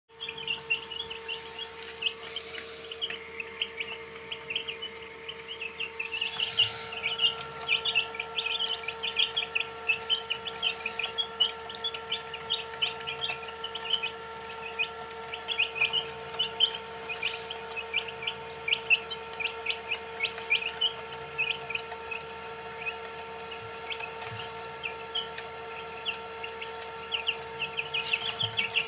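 A group of White Heera aseel chicks peeping continuously, many short high chirps overlapping, over a steady hum.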